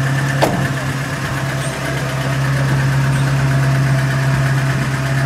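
GAZ Gazelle van's engine idling steadily. One sharp knock about half a second in as the driver's door shuts.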